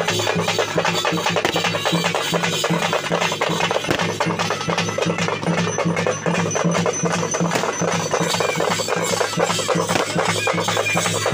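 Music with steady drumming and percussion, played continuously, with no separate firework bangs standing out.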